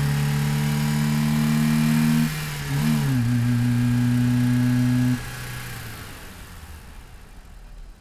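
Car engine sound effect holding a steady droning pitch. It dips and wavers briefly about two and a half seconds in, settles slightly lower, then cuts off sharply about five seconds in and fades away.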